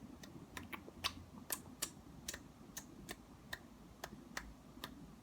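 Quiet, irregular sharp clicks or taps, about three a second.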